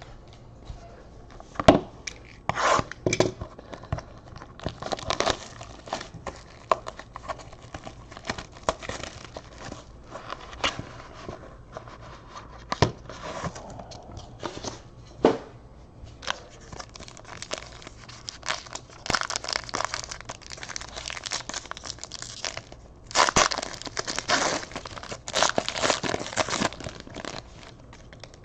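Plastic wrapping on a trading-card box being torn open and crinkled by hand, in several noisy bursts with sharp clicks and taps between them.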